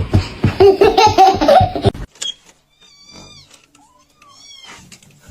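Hearty laughter in quick pulses for about two seconds, cut off suddenly; then, in a quieter stretch, two short high-pitched cat meows about a second and a half apart.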